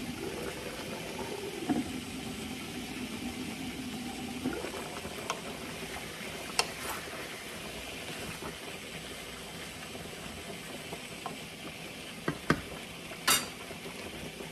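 Beef stew bubbling at a boil in a large pan while a wooden spoon stirs through it, with several clinks of the pan's glass lid being lifted and set back on; the sharpest clink comes near the end. A low steady hum runs for the first few seconds.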